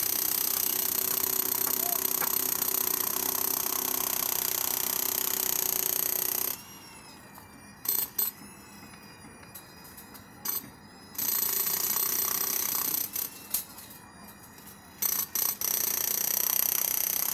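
Handheld electric demolition hammer chiselling a reinforced concrete pile head. It runs for about six seconds, stops, gives a few short blips, then runs again in two spells of a couple of seconds each.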